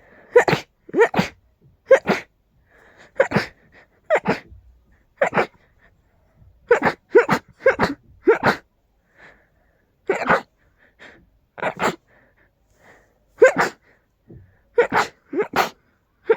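A person sneezing again and again: about fifteen loud sneezes roughly a second apart, some coming in quick pairs.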